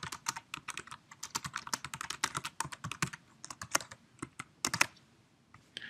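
Typing on a computer keyboard: a quick run of keystrokes that stops about five seconds in.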